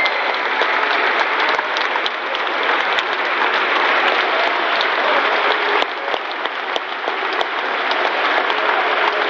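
Large stadium crowd applauding steadily, many hands clapping at once, with sharper individual claps from people close by.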